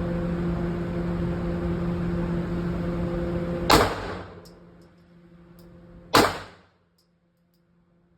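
Two pistol shots about two and a half seconds apart, the first a little under four seconds in. They come over a steady mechanical hum that falls away after the first shot.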